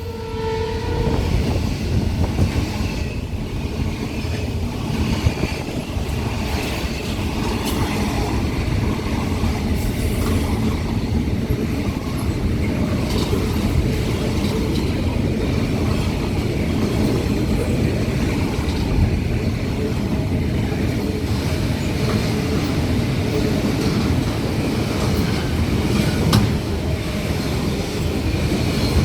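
Aurizon freight train rolling past, a continuous heavy rumble of wheels on rails with occasional sharp clacks. A held locomotive horn note cuts off about a second in.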